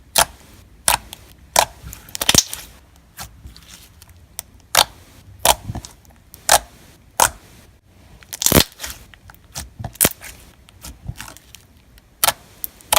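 Clear slime being pressed and played with by hand, giving irregular sharp pops and clicks of trapped air, about one or two a second with a few quick clusters.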